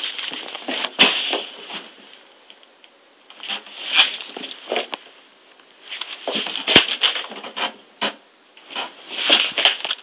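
A Mini Rex rabbit hopping and scrabbling around a wire pen lined with blankets and paper: irregular rustling and crinkling swells with a few sharp clicks scattered through.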